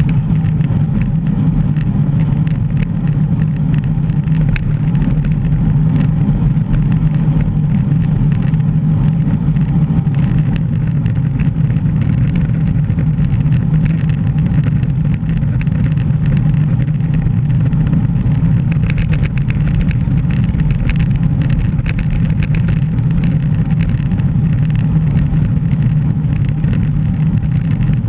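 Steady low wind rumble buffeting the microphone of a GoPro on a moving bicycle, with scattered light ticks over it.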